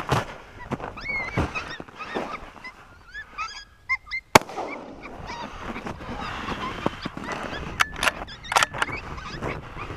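Footsteps crunching through snow at a walking pace, with short pitched calls that bend in pitch scattered among them, and one sharp click about four seconds in.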